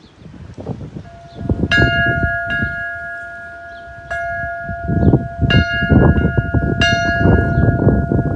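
Church bell struck about six times at uneven intervals, each clang ringing on over the next.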